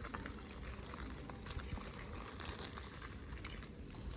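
Wood fire under a garden grill crackling, with scattered small pops and ticks.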